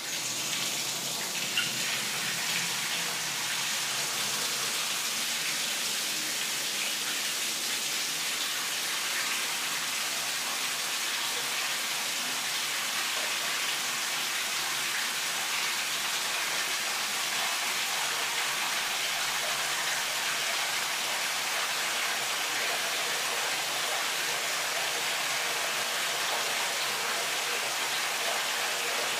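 A steady, even rushing hiss with no separate strikes or rhythm.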